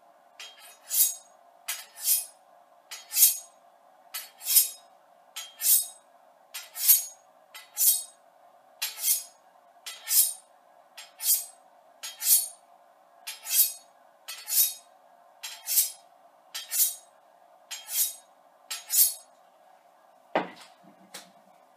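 A Dexter chef's knife stroked along a steel honing rod, about two strokes a second, each a short scraping ring that is much duller than other knives give. The strokes stop a couple of seconds before the end, followed by a single thump.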